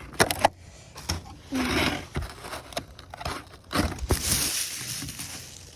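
Handling noises from a remote-control boat and its battery being swapped. A few sharp clicks and knocks come near the start and again through the middle, and a longer rustling, crinkling noise follows about four seconds in.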